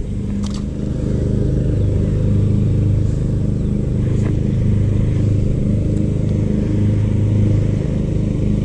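An engine running steadily, a low even hum that swells and eases slightly.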